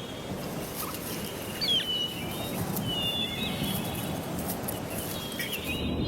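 Outdoor bush ambience: a steady hiss with scattered short bird chirps and whistles, one near the middle sliding down in pitch.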